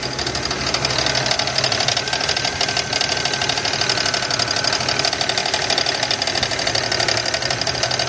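A 3800 Series II V6 idling with a rapid, steady knocking from the engine bay. The video is titled as rod knock, but the owner doubts it is internal, and he finds it goes away when the AC is switched on.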